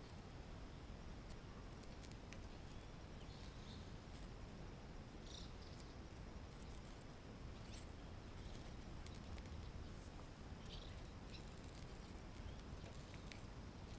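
Quiet charcoal shichirin grill: a steady low background noise with scattered small ticks and crackles from the glowing charcoal and the green onion and garlic grilling on the wire net.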